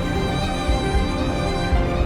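Background music with string instruments over a steady beat.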